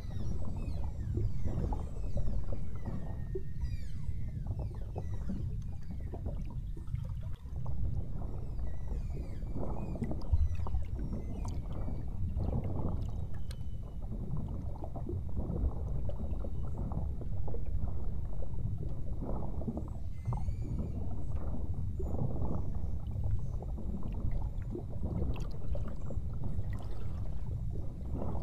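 Beluga whales whistling and chirping in short rising and falling calls, clustered near the start, around the middle and again about two-thirds of the way in, over a steady loud rumble of water and boat noise.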